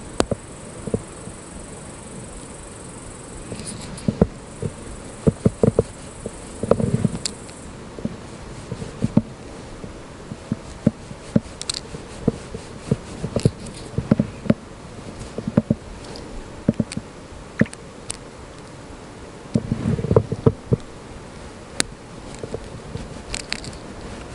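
Clicks, taps and soft knocks of a plastic syringe and bait tub being handled close to the microphone while the syringe is loaded with gel bait, scattered irregularly, with a couple of duller thumps about seven and twenty seconds in. A steady high-pitched insect trill runs over it for the first seven seconds or so.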